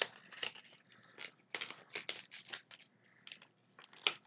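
A fidget spinner's retail packaging being opened by hand: a run of short, irregular crinkles and tearing sounds, with brief louder rips about four seconds in.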